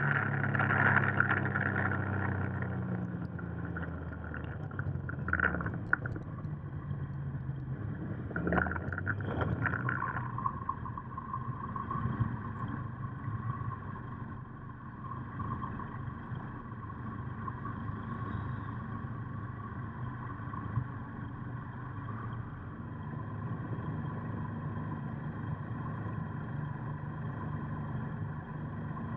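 Motorcycle engine running on the move, loudest for the first few seconds and then easing off. It gives way to a quieter, steady engine hum as the bikes roll slowly and sit running.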